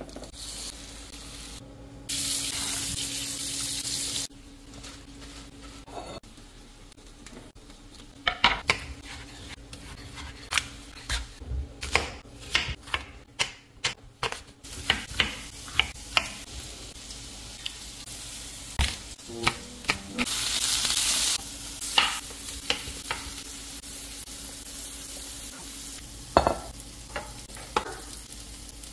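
Chicken sizzling on a hot grill pan for a couple of seconds, then a chef's knife chopping apple on a wooden cutting board in a run of sharp knocks. A second short hiss and a few more knocks come later.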